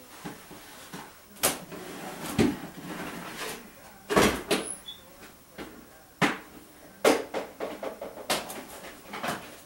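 Irregular knocks and clunks of hard objects being handled and set down, about eight of them spread over several seconds.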